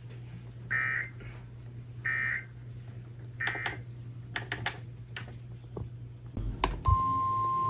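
Three short bursts of NOAA Weather Radio SAME data tones, a little over a second apart: the end-of-message signal closing a warning. A few clicks and a thump follow, and near the end the steady 1050 Hz weather radio warning alarm tone starts. A low receiver hum lies under it all.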